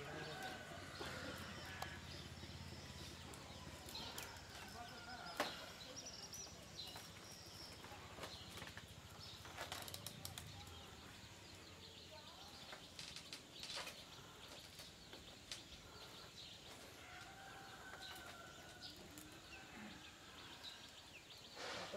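Quiet hand work on a woven basket: faint rustling and scattered light clicks as its strands are threaded and tied, the sharpest clicks about five and ten seconds in.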